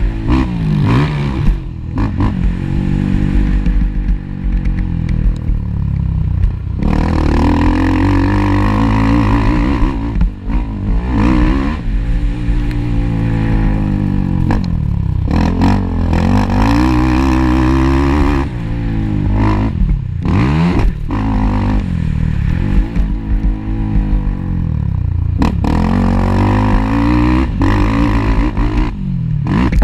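Racing ATV engine revving hard and backing off again and again, its pitch climbing and dropping every few seconds as the quad accelerates and slows around a motocross track.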